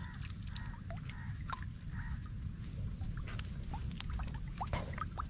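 River water sloshing and dripping with small plops as someone standing in it works a wooden stake into the riverbed.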